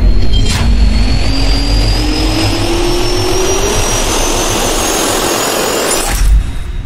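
Jet engine spool-up sound effect: a loud rumble with a whine rising steadily in pitch, with a sharp click about half a second in, cutting off abruptly a little after six seconds.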